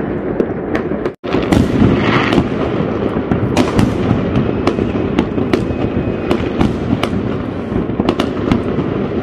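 Many New Year fireworks going off across a city: a dense, continuous rumble of distant bangs with frequent sharp cracks. The sound cuts out for a moment about a second in.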